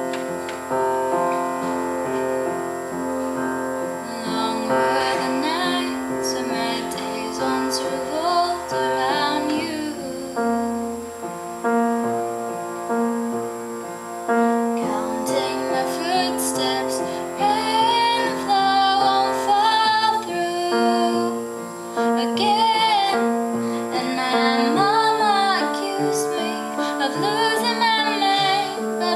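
A woman singing a slow ballad over piano accompaniment.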